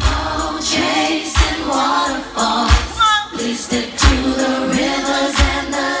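Live R&B song played through a concert sound system: sung vocals over a beat, with a low drum hit about every second and a half.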